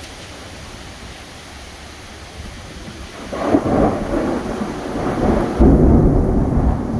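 Steady rain hiss, then about three seconds in a roll of thunder breaks in and builds to a loud low rumble near the end.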